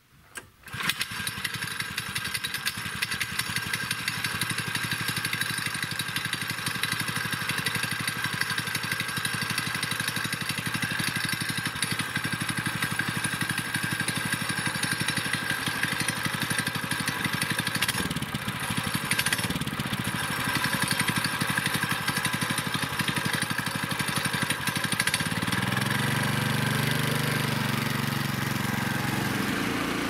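Lifan petrol engine of a Kirov SR-21 two-wheel-drive motorcycle starting about a second in and then running steadily. About five seconds before the end its note changes to a deeper, steadier drone.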